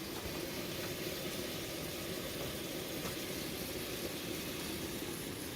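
Steady hiss of food cooking.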